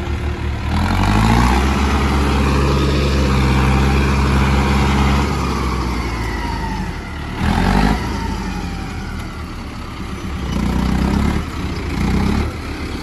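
Mahindra Arjun 605 4x4 tractor's diesel engine revving hard under load as the tractor climbs out of the water through deep mud. The revs rise about a second in and are held high for several seconds, then drop. A short sharp rev burst follows a couple of seconds later, and there are more revs near the end.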